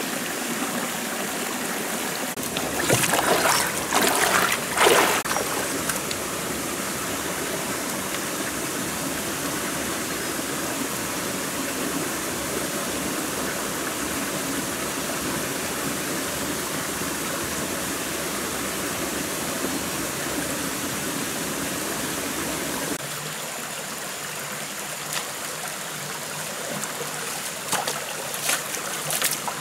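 A shallow forest stream running steadily over rocks. About three seconds in, a couple of seconds of louder rustling and crunching, and a few more sharp crunches near the end.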